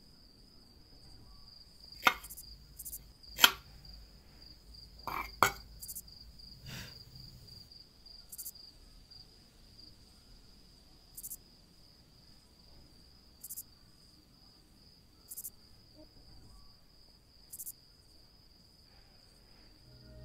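Night insect ambience: crickets trilling steadily at a high pitch, with short, higher chirps every two to three seconds. Several sharp knocks cut through in the first seven seconds, the loudest about three and a half seconds in.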